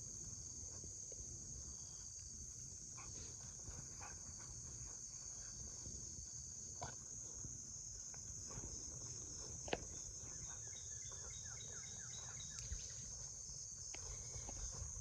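Steady high-pitched chorus of insects, most likely crickets, with a few scattered clicks and a quick run of ticks about two-thirds of the way through.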